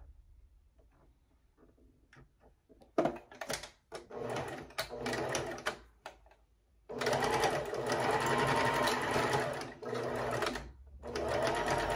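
Electric domestic sewing machine stitching through a cloth face mask in stop-and-start runs: quiet at first, a few short bursts of stitching about three seconds in, then a longer steady run from about seven seconds, pausing briefly before a short run near the end. It is restitching a seam line closer to the original stitching.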